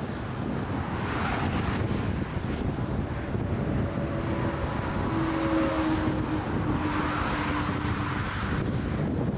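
Strong gusty wind buffeting the microphone, rumbling and swelling in gusts. Under it, a faint steady engine whine of a jet aircraft comes through in the middle of the stretch.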